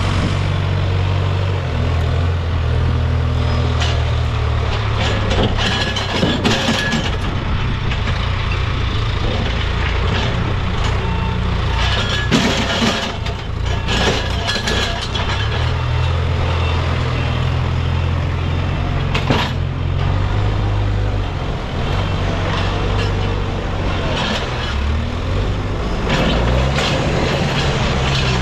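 Case backhoe loader's diesel engine running under load, its note rising and falling as the machine works, with scattered knocks and clatter, the busiest stretch about midway through.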